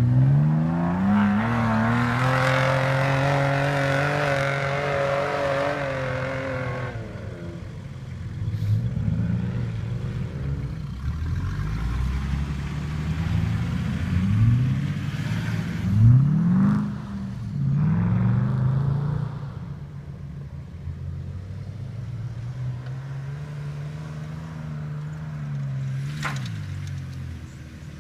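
Off-road vehicle engine revving hard over rough ground. The pitch climbs in the first couple of seconds and holds until it drops away about 7 seconds in. Several shorter revs rise and fall near the middle, then the engine runs lower, with a sharp knock near the end.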